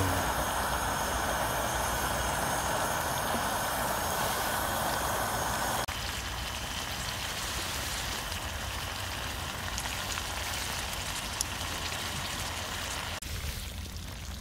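Oil in an opened can of sardines sizzling steadily as the can heats on a small solid-fuel pocket stove, a little quieter after about six seconds.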